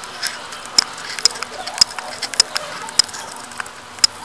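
A teddy bear hamster scrabbling right against the microphone: sharp, irregular clicks, about one every half second, over a soft steady rustle.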